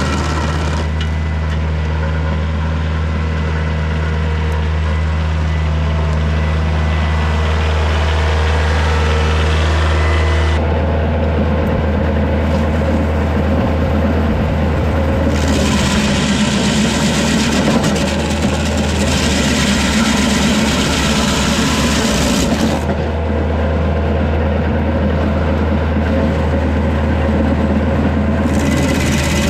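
PTO-driven stump grinder (Woodland Mills WG24) running on a Kioti DK40se diesel tractor, its cutter wheel chewing into a red pine stump over the steady low drone of the engine. The grinding noise grows brighter and duller in stretches of a few seconds as the cutter bites and eases off.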